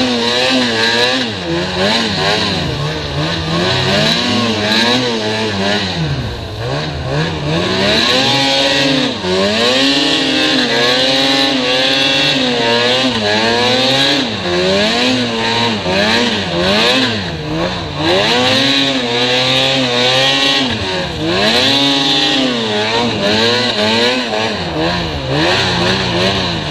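Snowmobile engine revving up and down over and over as the throttle is worked on a snowy trail, the pitch climbing and dropping every second or two, over a steady hiss.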